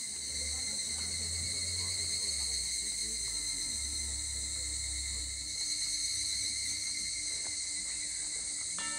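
Cicadas buzzing steadily in a high, even drone. Under it a low humming bass changes pitch a few times, and sustained ringing musical tones come in about a third of the way in and again near the end.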